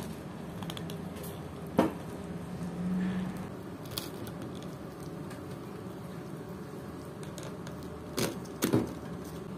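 Steady background hum with a few scattered sharp clicks and knocks, two of them close together near the end.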